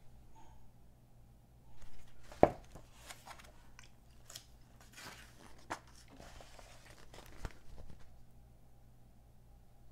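Glossy magazine pages being handled and turned, paper rustling and crinkling, with a sharp knock about two and a half seconds in.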